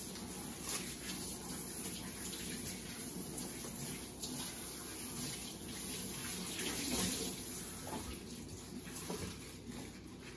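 Kitchen sink tap running steadily, water splashing into the sink as things are washed under it.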